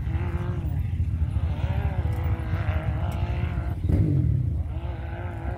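Rock buggy engines running with a deep rumble, revving so the pitch rises and falls in short pulls.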